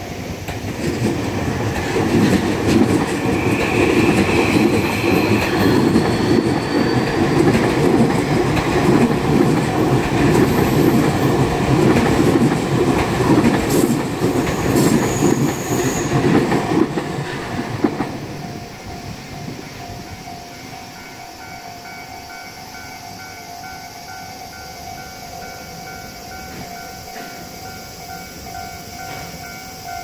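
Electric commuter train running past over a level crossing, with loud wheel-on-rail clatter that builds about a second in and dies away after about eighteen seconds. The crossing's warning bell then rings on in a steady, even repeating chime while the barriers stay down.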